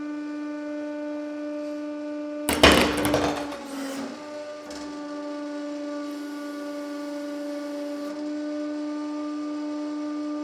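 A 150-ton hydraulic press runs with a steady droning whine as it presses down on a roll of monofilament fishing line. About two and a half seconds in, a loud crunching burst lasting about a second breaks over the drone.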